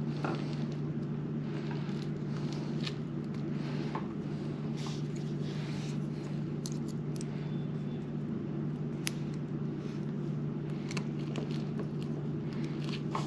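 A steady low hum runs throughout, with a few faint, sharp metallic clicks from time to time as a wire circlip is worked into a piston's wrist-pin bore with needle-nose pliers.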